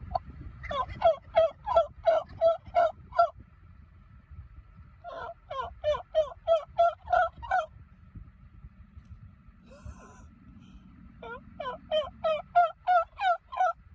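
Wild turkey gobbling: three bouts of rapid, loud notes, each lasting a couple of seconds.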